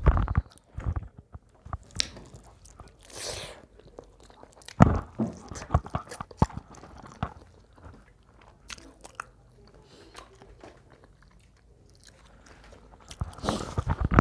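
Close-miked eating: chewing and crunching food, with scattered sharp clicks and smacks, going quiet for a few seconds in the middle.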